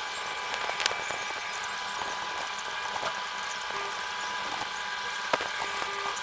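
Steady microphone hiss with a faint high electrical whine, broken by a few sharp keyboard and mouse clicks while code is edited.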